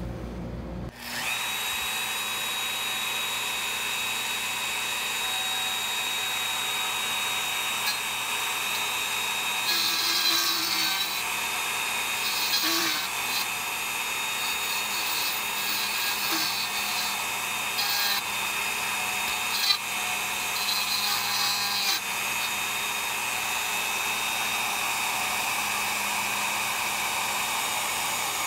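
Bosch plunge router spinning an end mill, starting up about a second in and then running with a steady high whine. Several brief scratchy bursts come between about 10 and 22 seconds in as the end mill skims the aluminum cylinder head surface.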